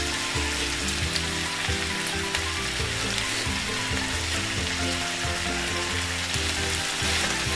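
Beef chunks with sautéed onion and tomato sizzling steadily in a frying pan.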